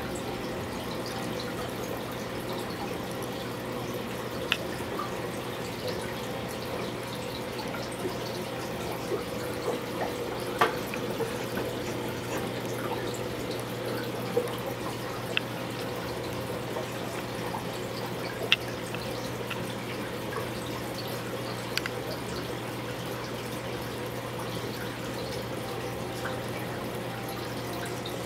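Aquarium filter running: a steady low hum with water trickling and splashing, and a few sharp drip-like ticks scattered through.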